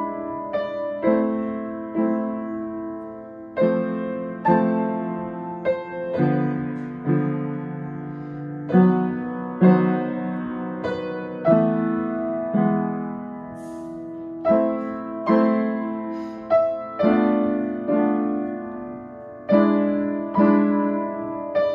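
Piano playing a slow classical-style piece: chords and melody notes struck about once a second, each ringing and dying away before the next.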